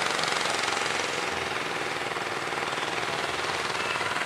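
Engine of an outrigger fishing boat running under way, a fast, even pulsing over the noise of surf and wind.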